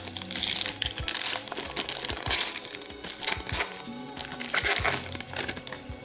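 Crinkling of a hockey card pack's wrapper being handled, in several spells of crackle, over background music with a steady beat.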